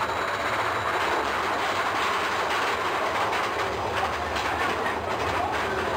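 Mine-train roller coaster cars rattling and clattering along the track, heard from on board as a steady running noise.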